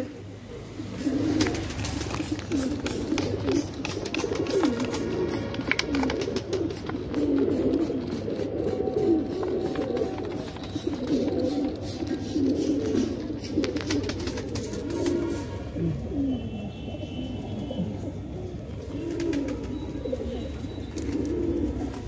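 Domestic pigeons cooing, several birds overlapping in a continuous low chorus.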